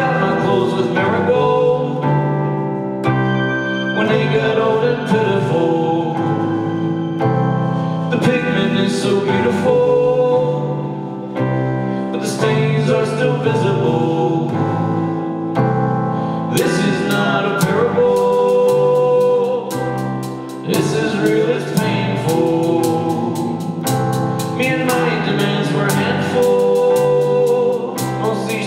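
Live song by an indie duo: male vocals over electric keyboard chords, with a drum kit played with mallets and sticks. From a little past halfway the drums and cymbals settle into a steady, busy beat.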